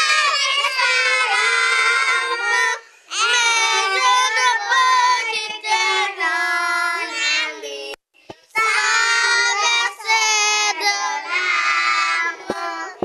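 Young children singing a song together into handheld microphones, in sung phrases with short breaks about three seconds in and again about eight seconds in.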